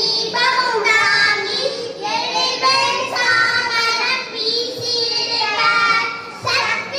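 A group of girls singing a devotional song together into microphones over a PA, in phrases with long held notes and a brief breath break near the end.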